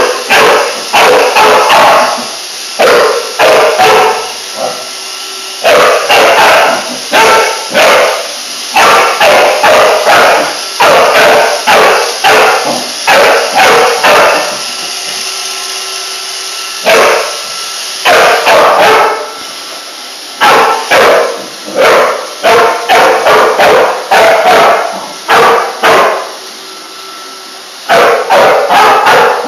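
Pit bull barking loudly in rapid bursts of several barks, with short pauses between bursts. A robot vacuum runs underneath as a steady hum.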